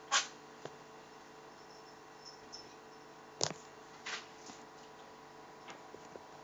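A few scattered knocks and clicks of cookware and utensils being handled, the loudest right at the start and another about three and a half seconds in, over a faint steady hum.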